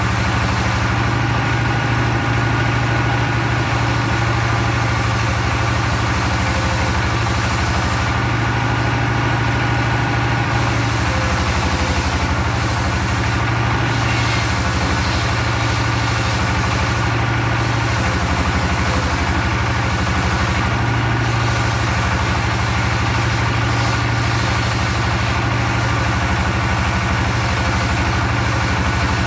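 The engine of a circular log sawmill running steadily, a constant low drone with no break.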